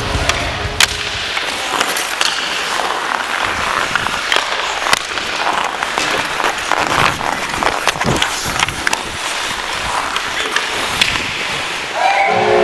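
Ice hockey play: skate blades scraping and carving on the ice, with sharp clacks of sticks and puck scattered throughout. Music comes in just before the end.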